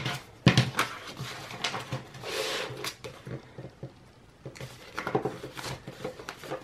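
Paper bills and a clear plastic zip-top cash envelope being handled: crinkling and rustling with small taps on the table, and a sharp tap about half a second in.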